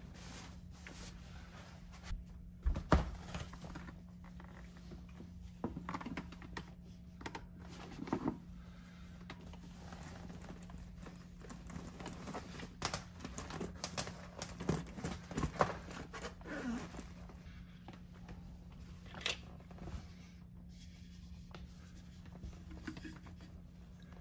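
Handling sounds: paper towels rustling as they are laid over the floor, then scattered knocks and clicks as a plastic heat plate, feeders and waterers are set down, the loudest a thump about three seconds in. A faint steady hum runs underneath.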